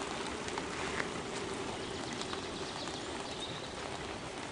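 Mountain bikes rolling over a cobblestone track: a steady hiss of tyres on the stones with scattered small clicks.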